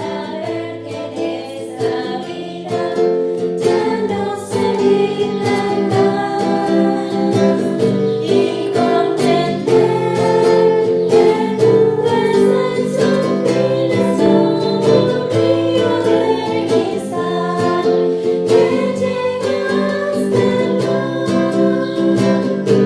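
Music: singing over a plucked-string accompaniment.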